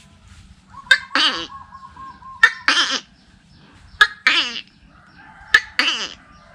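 A man imitating a tokay gecko's call with his voice, his hand cupped over his mouth: four two-part calls about one and a half seconds apart, starting about a second in, each a sharp click followed by a short call that falls in pitch.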